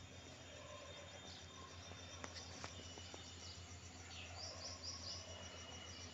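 Faint early-morning outdoor ambience: a steady, evenly pulsing high insect chirping, with a few short bird chirps about two-thirds of the way in, over a low steady hum.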